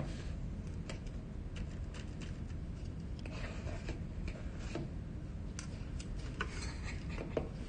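Scattered light clicks and scrapes of a metal spoon and knife working sticky cookie dough: pushing dollops off onto a paper-lined baking tray and scooping more from a glass mixing bowl, over a low steady room hum.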